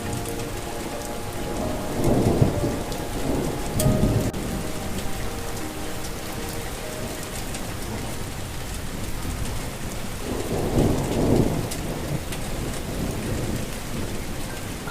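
Steady rain with thunder rumbling twice, about two seconds in and again about ten seconds in. Soft sustained melody notes sound faintly underneath.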